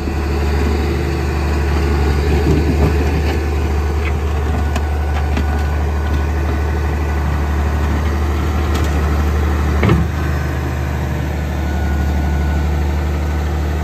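Massey Ferguson tractor's diesel engine running steadily while its front-loader bucket scrapes mud and grass off the entryway, with a sharp clunk about ten seconds in.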